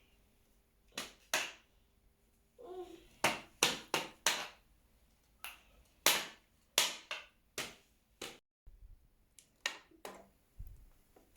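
Spoon clinking and tapping against a breakfast bowl: about a dozen sharp, irregular strikes, each with a short ring.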